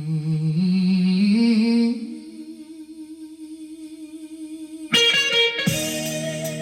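Music played through a truck's door speakers. A held note with vibrato softens about two seconds in, and struck guitar chords come in near the end as new music begins.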